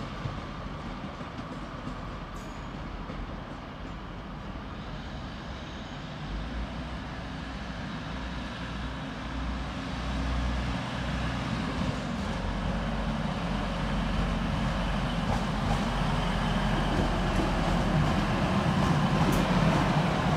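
Diesel passenger train drawing slowly closer through station pointwork, its engine drone growing steadily louder. Rail noise rises with it.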